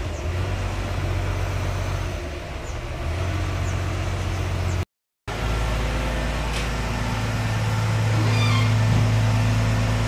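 Wheel loader's diesel engine running steadily, with a half-second gap of silence about halfway through. Near the end a brief high-pitched squeal sounds over the engine.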